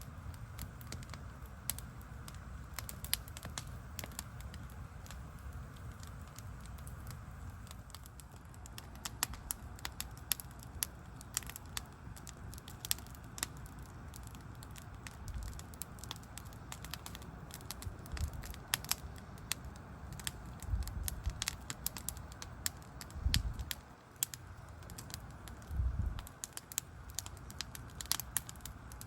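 Wood fire crackling and popping with sharp, irregular snaps over a low steady rumble, and a few low thumps in the second half.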